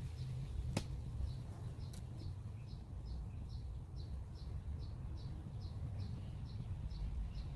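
A small bird calling: a short, high chirp repeated steadily about twice a second, over a steady low rumble. A single sharp click about a second in.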